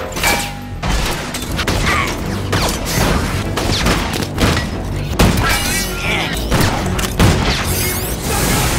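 Movie action soundtrack: a music score under a dense run of booms, crashes and metal impacts, one hit after another.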